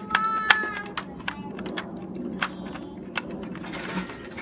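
Screwdriver turning a screw out of a tower fan's plastic housing: sharp small clicks about one or two a second, with a brief high voice near the start.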